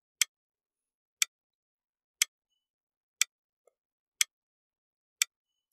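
Clock-tick sound effect: six sharp ticks, one a second, counting down the answer time for a quiz question.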